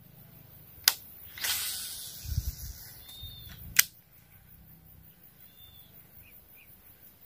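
A cast with a casting rod and reel: a sharp click from the reel, then fishing line whizzing off the spool and fading over about a second and a half, with a few low thuds midway, and a second sharp click as the reel is engaged. Faint bird chirps follow.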